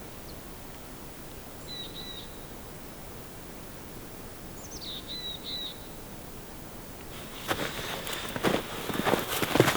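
Quiet riverside ambience with a faint steady hiss of the river trickling; a small bird calls twice, short high notes each opening with a quick downward slide, about two and five seconds in. From about seven and a half seconds in, irregular crunching footsteps in snow come in, louder than the rest.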